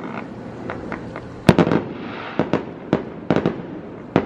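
Fireworks going off: one loud bang about a second and a half in, then a scattered string of smaller pops and crackles.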